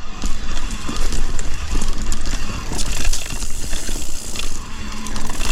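Mountain bike riding fast on a single-track gravel trail: tyres crunching over gravel and the bike rattling and clicking over bumps, with wind rumbling on the microphone.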